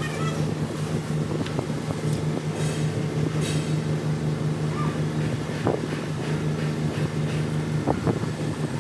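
Steady low machine hum, like a motor or engine running at a constant speed, with a few faint clicks and short high chirps scattered through it.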